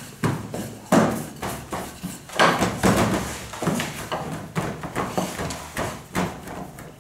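Wooden rolling pins, lengths of broomstick, rolling and knocking over bread dough on a stainless-steel worktable: an irregular run of knocks, two or three a second.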